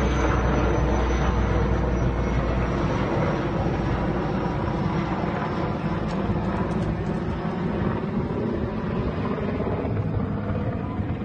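Firefighting aircraft flying over, a steady engine drone with a faint high whine slowly falling in pitch, easing a little as it passes.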